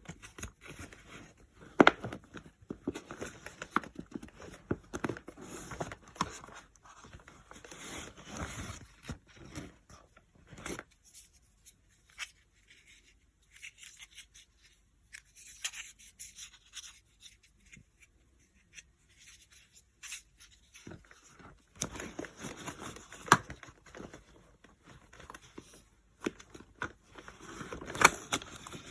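Close-miked handling noise: rapid crisp scrapes, ticks and tearing-like rustles from small objects being worked, busy for about ten seconds, sparse in the middle, then busy again near the end.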